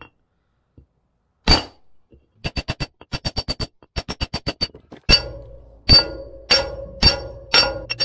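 Steel hammer striking a metal drift held on a rusted concrete-mixer shaft, metal on metal: a single blow, then runs of quick light taps at about eight a second, then five heavier blows a little over half a second apart that leave a ringing tone. It is the work of driving out a seized shaft that has not turned in years.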